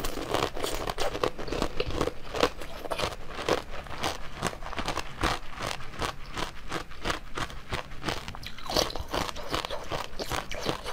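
Close-miked chewing of a mouthful of blue jelly: a steady, uneven run of quick clicks and squelches, several a second.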